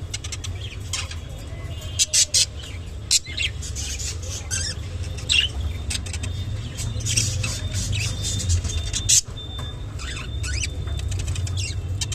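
Clearwing budgerigars feeding on water spinach, giving many short, sharp chirps and clicks scattered irregularly over a steady low rumble.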